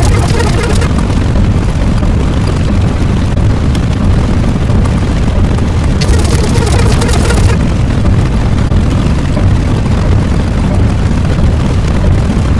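A loud, continuous low rumbling roar. A burst of high hiss joins it about six seconds in for a second or so, then drops away.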